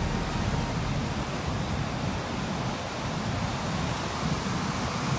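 Ocean surf breaking on the shore, heard as a steady wash of noise.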